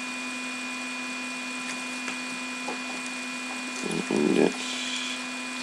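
A steady electrical hum with a few faint clicks, and a short rustle about four seconds in.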